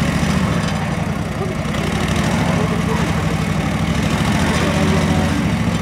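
Engine of an Ant rail car mover running steadily at low revs, a low hum, as it edges up to an electric freight car to couple with it.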